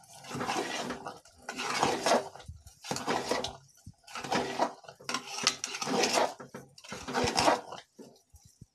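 A spoon scraping and stirring thick grated-carrot halwa against the sides of a pressure cooker, in strokes about once a second. The sugar has just gone in and is being mixed through the halwa.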